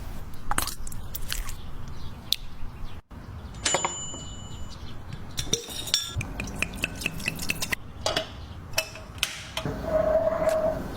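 Series of light taps, clicks and clinks of kitchen utensils against bowls and plates, with one brief ringing clink about four seconds in.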